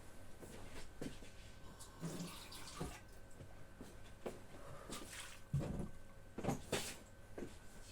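A little water sloshed round a food-chopper bowl to rinse out the chopped pepper juice and poured off, with a few light knocks of the bowl being handled, the sharpest in the second half.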